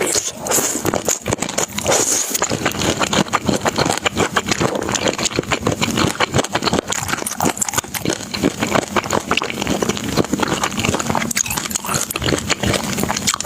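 Close-miked eating sounds: a person chewing and slurping food, with dense, irregular mouth clicks.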